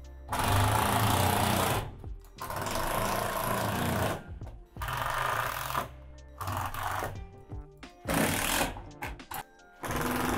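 Cordless impact driver running screws up into plastic shed roof panels and framing, in about six short runs of rapid hammering separated by brief pauses.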